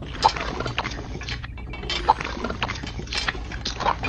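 Wet concrete mix squelching and plopping as it is tipped out of a small bucket onto a board, in irregular wet splats with a few sharper slaps.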